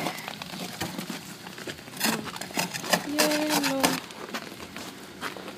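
Footsteps crunching and crackling on icy snow, a quick run of short crisp crunches. A brief steady hum comes about three seconds in.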